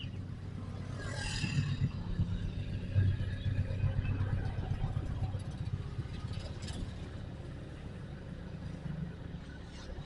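Motorcycle engine running steadily at low speed while riding through traffic, a little louder a second or so in.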